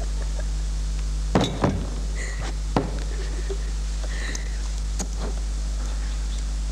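Steady low electrical hum on an old video soundtrack, with a few short sharp knocks: two close together about a second and a half in, one near three seconds and a lighter one near five seconds.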